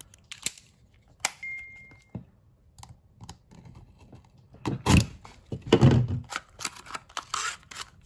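A small cardboard product box being cut open with a blade and torn apart: a few light clicks and scrapes of handling, then several loud tearing sounds in the second half as the seal and box give way.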